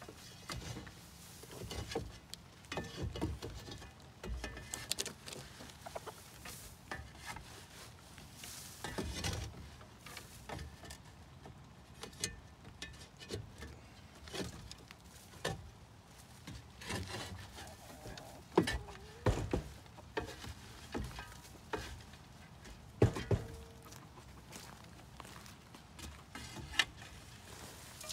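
Long-handled metal tool scraping and raking old bedding and hay out of a wooden chicken coop, with irregular scrapes and knocks of metal on wood. A few sharper knocks stand out in the second half.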